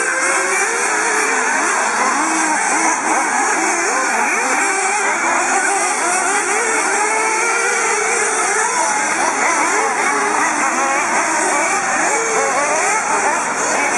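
Several 1/8-scale nitro RC buggy engines racing together, a dense layer of overlapping high-pitched engine notes rising and falling as the cars accelerate and brake through the course.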